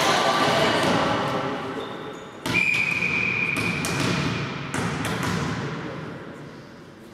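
Echoing sports-hall sound during indoor volleyball: voices and ball thumps, with one steady high whistle blast starting about two and a half seconds in and lasting about two seconds, the referee's whistle to signal the serve.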